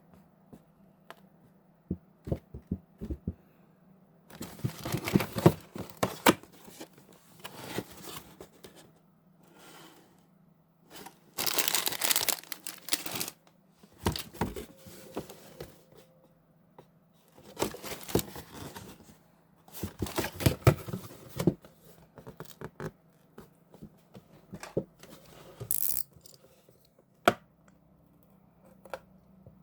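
Golaebab snack packaging being torn and crinkled open in several bursts, with small clicks and taps between them.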